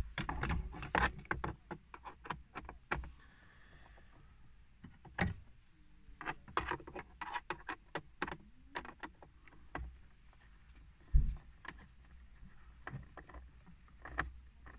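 Irregular small clicks, taps and scrapes of a screwdriver and hands working against plastic dashboard trim as a binnacle screw is fitted, with a louder dull knock about eleven seconds in.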